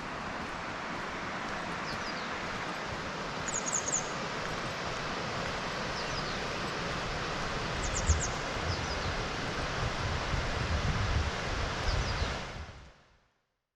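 Waterfall rushing steadily, with a few short high chirps over it; the sound fades out near the end.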